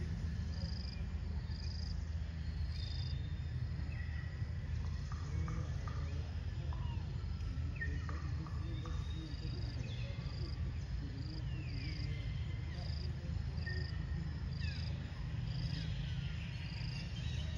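Outdoor ambience of insects chirping in a regular high pulse, about once a second, over a steady low rumble. A few short high calls slide down in pitch now and then.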